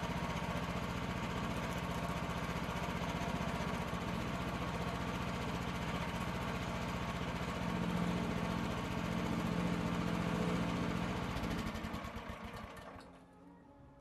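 Portable band sawmill's small gas engine running steadily, swelling a little about eight to ten seconds in, then shut off near the end and winding down to a stop.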